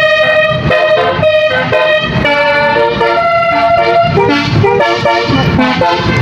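Bus telolet horn playing a song melody: loud, steady horn notes changing pitch several times a second.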